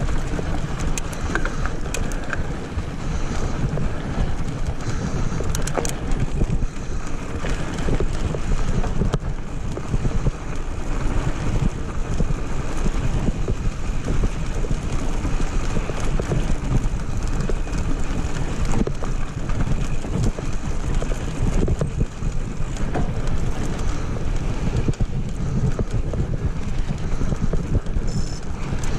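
Wind buffeting the microphone of a handlebar-mounted action camera while a mountain bike rolls over loose gravel and dirt: a steady rushing noise with a few sharp clicks and rattles from the bike.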